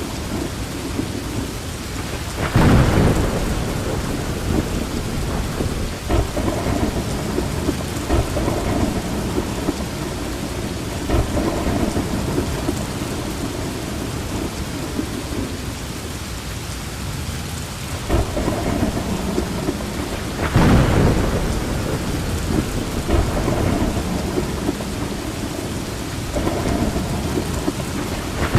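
Steady rain falling in a thunderstorm. Two loud thunderclaps, about two and a half seconds in and about twenty seconds in, each rumble on for a few seconds, and another begins at the very end.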